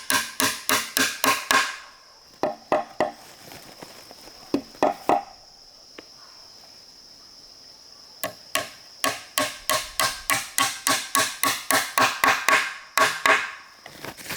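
Rapid, evenly spaced strikes of a hand tool on wood, about three a second. One run stops about two seconds in, a few single blows follow, and a second run starts after a pause of a few seconds. A steady high insect drone sounds between the blows.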